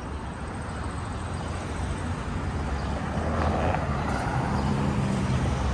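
Street traffic: motor vehicles running past, with a low engine hum that grows steadily louder as a vehicle approaches.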